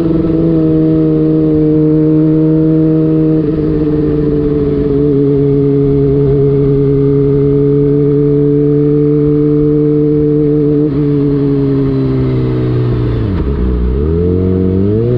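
Kawasaki ZX-25R's 250 cc inline-four engine running through an aftermarket DX Generation Prorace exhaust with the dB killer removed, holding steady revs while cruising. Near the end the revs fall sharply and then climb again as the throttle opens.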